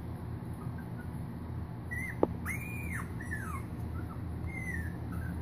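Puppy whimpering: a series of short, high-pitched whines that rise and fall, starting about two seconds in, with a sharp click just before the first one. A steady low hum runs underneath.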